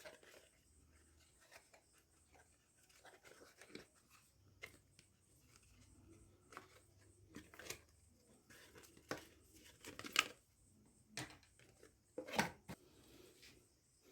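Box and wrapping being handled and opened by hand: faint scattered rustles, taps and clicks, with a few sharper snaps about ten and twelve seconds in.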